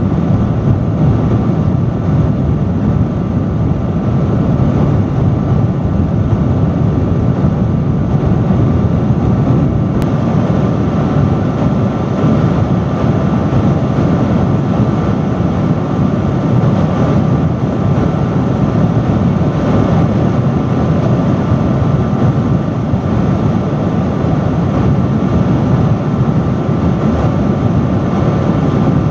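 Industrial fan running steadily: a loud, constant rush of moving air, heaviest in the low range, with a faint steady whine just above 1 kHz.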